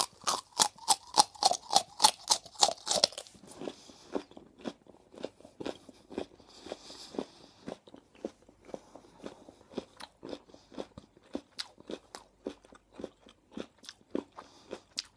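A crisp raw carrot crunched in a quick run of bites close to the microphone, about four or five loud crunches a second, for about three seconds. Then quieter, steady chewing of the carrot pieces.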